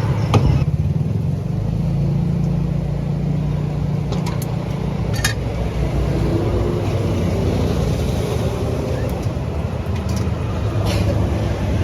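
A motor vehicle engine running steadily, with a few sharp clicks.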